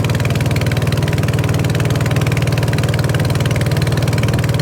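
Boat engine running steadily, with a fast, even pulsing beat from its firing.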